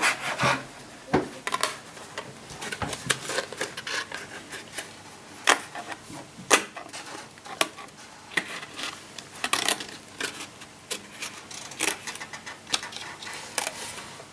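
Children's craft scissors snipping through paper, a run of irregular short snips with paper rustling between them as the sheet is turned.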